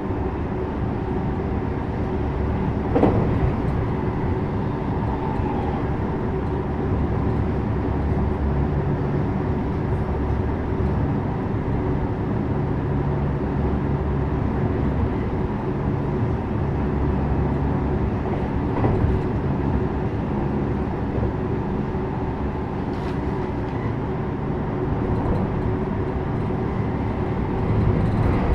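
JR West 321 series electric train running between stations: a steady rumble of wheels on the rails with a motor and gear hum. A few short sharp knocks stand out, about three seconds in, past the middle, and near the end.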